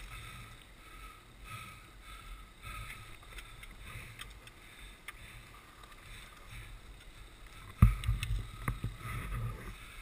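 Dirt bike engines idling low, with a steady low rumble on a helmet-mounted camera. About eight seconds in comes one sharp knock, the loudest sound, followed by a second or two of louder low rumbling.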